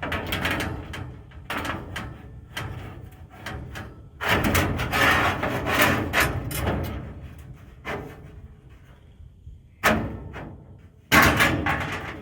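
Sheet-metal smoker parts clanking and knocking as they are handled and set in place. There is a longer stretch of rattling about four seconds in and two sharp knocks near the end.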